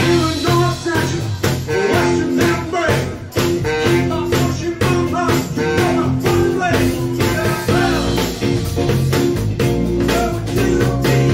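Live rock band playing an up-tempo groove: drum kit, electric guitar, bass guitar and saxophone, with a tambourine.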